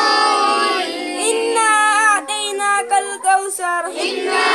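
Boys' voices chanting Arabic prayer recitation together, then a single boy's voice reciting alone in a drawn-out melodic chant for about three seconds, before several voices join again near the end.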